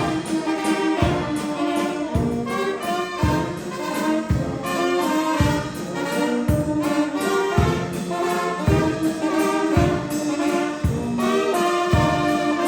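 A brass band playing music, with brass parts over a steady low bass stroke about once a second.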